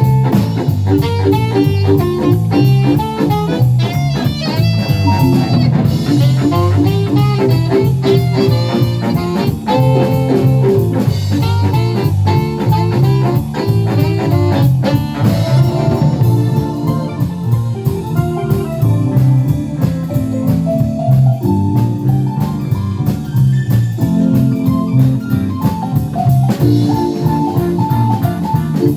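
Live band playing a jazz-tinged song, with guitar and drum kit over a steady beat.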